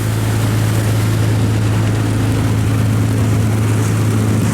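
Diesel engine of a heavily loaded river cargo barge running hard under load, a loud steady deep drone that holds one pitch.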